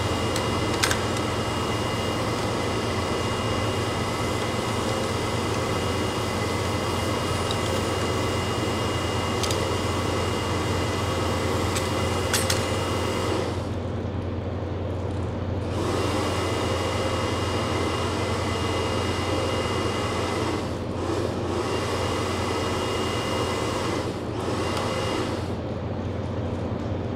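Steady machine hum and whir with faint high whistling tones, broken by a few sharp metal clicks of a hand tool on copper tubing.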